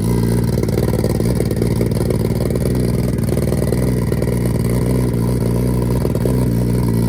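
Turbocharged Suzuki Hayabusa inline-four engine idling steadily.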